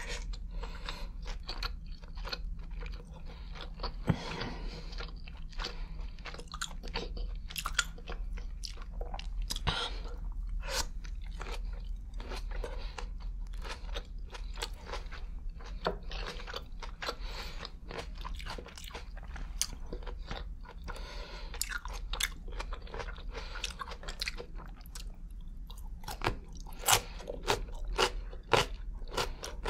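Close-miked eating: green grapes and cured ham being bitten and chewed, with many irregular sharp crunches and wet clicks, the sharpest near the end, over a faint steady low hum.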